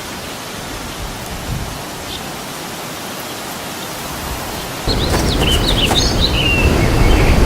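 Outdoor ambience: a steady, even rushing noise, like rain or wind. About five seconds in it turns louder, with a low rumble and a few short bird-like chirps, then cuts off abruptly at the end.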